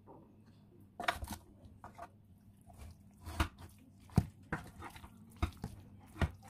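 A metal spoon stirring raw beef chunks coated in spice paste in a pot: scattered, irregular wet squelches and clicks.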